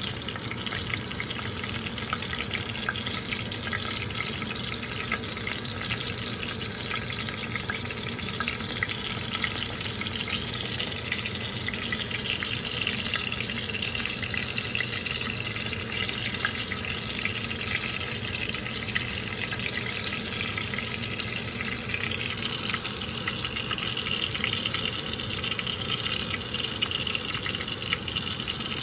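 Battered oyster mushroom pieces frying in hot oil, sizzling steadily with a dense crackle of tiny pops.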